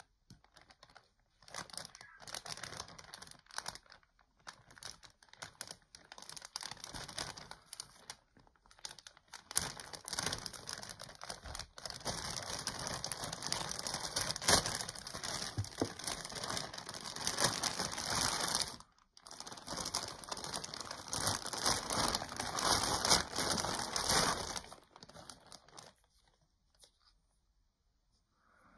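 Thin clear plastic bag crinkling and rustling in the hands as it is opened and pulled off a figure. It comes in several long stretches with short breaks and stops a few seconds before the end.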